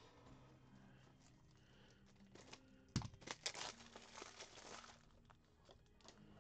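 Faint handling of trading-card packaging: a sharp click about three seconds in, then a couple of seconds of crinkling plastic.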